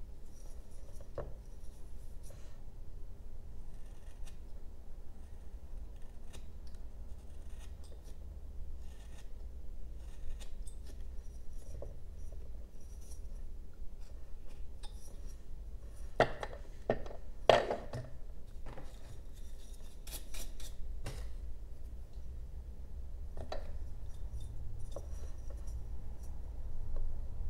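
Carving knife paring small cuts in a basswood block: a run of short, faint slicing and scraping strokes, with a cluster of louder, sharper cuts a little past halfway.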